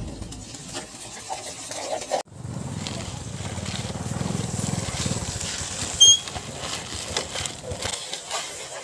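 Loose gravel crunching and grinding under the plastic wheels of a toy dump truck pushed along by hand. About six seconds in there is one short, loud, high chirp or squeak.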